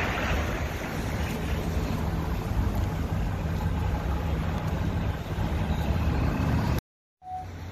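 City street traffic: cars and a bus driving past, a steady low rumble with wind buffeting the phone's microphone. The sound cuts out for a moment near the end and comes back quieter.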